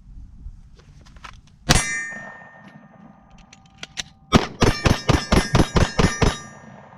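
Glock pistol fired once, then emptied in a rapid mag dump of about ten shots in two seconds, with the steel targets ringing after the hits.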